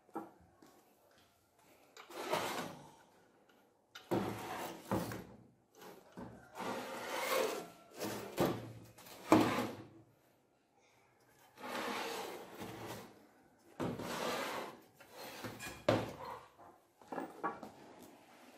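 A small single-cylinder engine being turned and slid around on a metal workbench: a series of scraping, rubbing bursts of a second or two each, with a sharp knock about nine seconds in.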